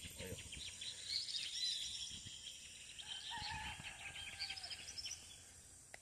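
Dawn chorus of forest birds: many quick repeated chirps and trills overlapping, with a drawn-out lower whistle about halfway through, over a steady high hiss of insects.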